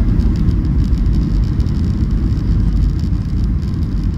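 Steady low rumble of a Boeing 737 airliner's engines and rushing air in flight, heard inside the passenger cabin by the window, with a faint hiss above it.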